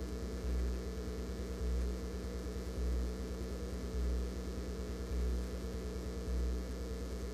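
A steady low hum with a deeper swell that comes back regularly, a little more than once a second.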